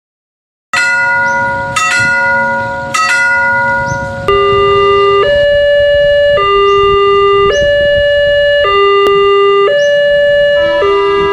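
Three struck-bell tones about a second apart, then an electronic two-tone warning that alternates between a high and a low pitch, each held about a second, like a hi-lo siren.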